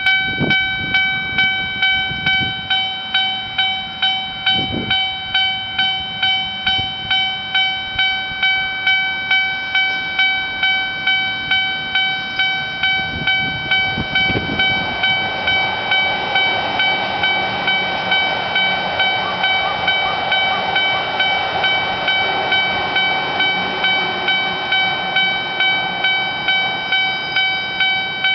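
Japanese level-crossing warning bell ringing in steady, evenly repeated electronic dings, somewhat under two a second. From about halfway through, the rumble and rattle of a train passing over the crossing joins it.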